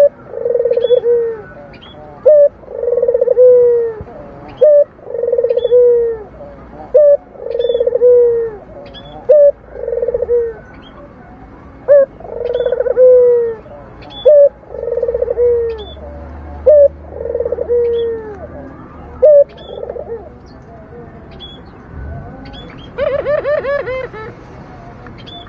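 A local puter dove (Barbary dove) giving its rolling 'mendengkur' coo. It repeats about nine times, each a short clipped note followed by a longer low coo, roughly every two and a half seconds. Near the end comes a buzzier, different sound.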